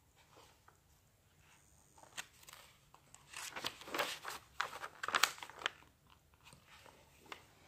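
Pages of a picture book being turned by hand: papery rustling and crinkling for a few seconds, starting about three seconds in.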